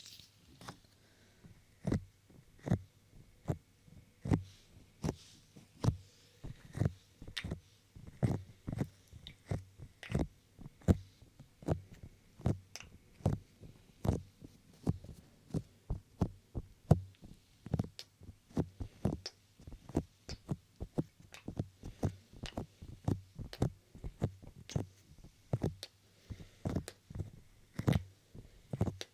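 Fingertips tapping and touching a 3Dio binaural microphone's ears: soft, irregular thumps, about two a second.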